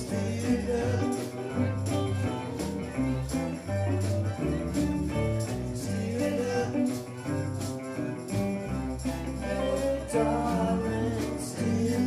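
Live reggae band playing: electric guitars, bass and drums on a steady beat, with a hand shaker and a singer's voice over it.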